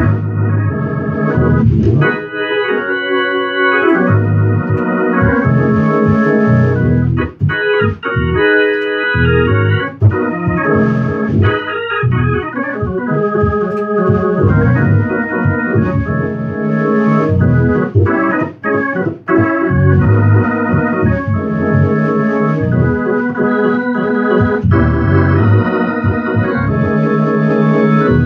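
Hammond XK-series organ played with both hands in gospel chops style: full, sustained chords over a bass line, broken by a few sudden stops and stabs.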